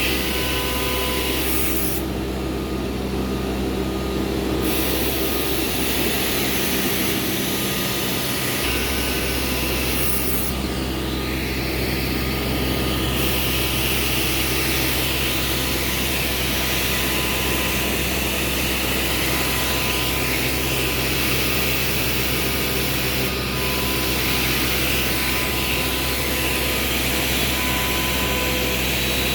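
CNC router machinery running steadily: a constant hum and hiss. The high hiss drops away briefly twice, about two seconds in and again about ten seconds in.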